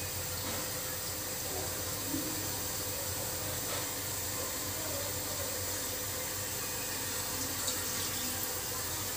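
Water poured from a glass onto a stainless-steel plate, a steady splashing pour that runs on.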